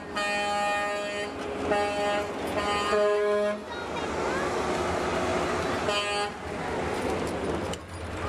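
Vehicle horn honked in separate blasts: three of about a second or less in the first three and a half seconds, then a short one about six seconds in, with people's voices between.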